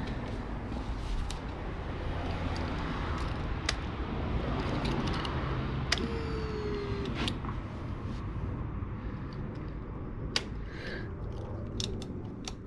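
KTM Duke 125's single-cylinder engine started up and running steadily after a fuel filter change, with a few sharp clicks over it.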